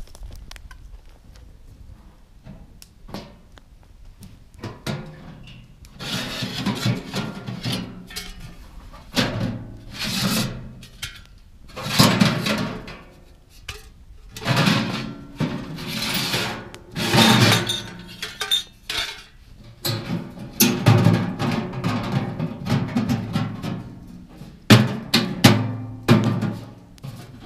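Faint scattered clicks of handling for the first few seconds, then background music with drums comes in about six seconds in, with loud percussive swells every second or two.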